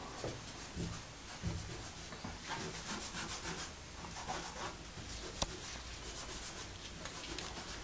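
Short, repeated scratching strokes of a drawing tool on a wall as lines are sketched by hand, with one sharp tick a little over five seconds in.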